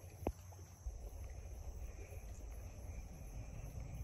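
Low, distant rumble of a Delta IV Heavy rocket's three RS-68A engines, growing stronger about a second in. A single sharp click comes just after the start, and insects chirr faintly.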